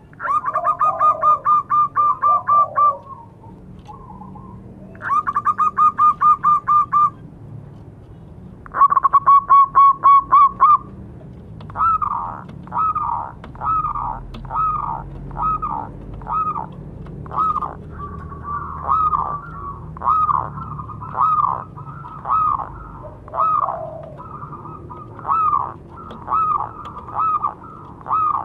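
Zebra dove (perkutut) cooing: three bursts of rapid staccato coo notes in the first eleven seconds, then a long run of separate rising-and-falling coo notes, about one and a half a second.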